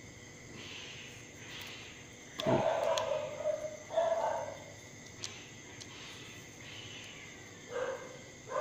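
An animal's voice: two short pitched calls about a second apart near the middle, the first starting with a knock, and another call beginning near the end.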